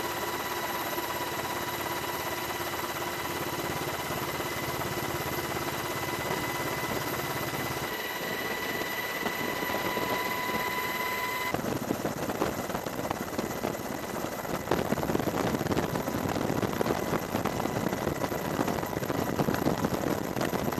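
Helicopter running, heard from aboard: a steady drone with a high whine, which switches abruptly about eleven seconds in to a louder, rougher rushing noise without the whine.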